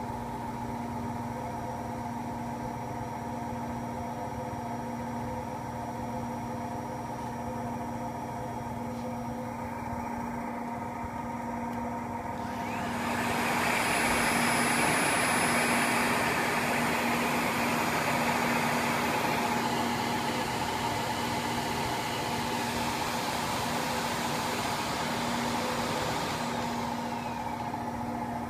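Siemens iQ700 front-loading washing machine on its final spin at 1200 rpm: a steady hum with several held tones. About twelve seconds in, a Miele S8310 canister vacuum cleaner starts up over it with a louder rushing noise and a high whine. The vacuum shuts off a second or so before the end, leaving the spin hum.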